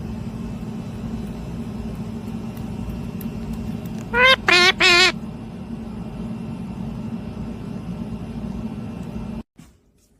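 A parrot gives three short, loud, harsh calls with a wavering pitch about four seconds in, over a steady machine-like hum that cuts off suddenly near the end.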